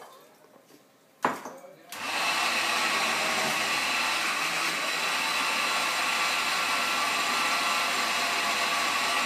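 A click about a second in, then a countertop blender starts and runs steadily, blending cauliflower soup.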